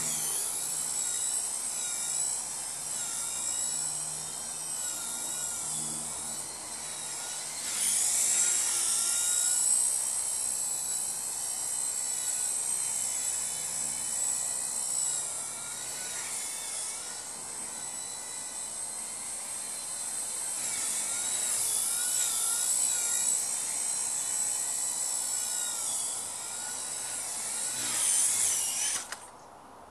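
Blade mCP X micro RC helicopter in flight: a high-pitched electric-motor whine with rotor buzz, its pitch and loudness rising and falling with the throttle. It cuts off suddenly near the end.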